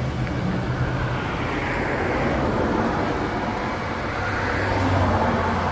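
Car engine running, with a broad rush of noise that swells about two seconds in and again near the end.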